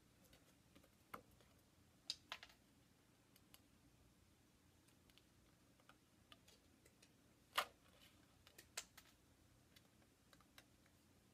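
Small scissors snipping through printable shrink-plastic sheet: faint, scattered snips and clicks, the loudest about seven and a half seconds in.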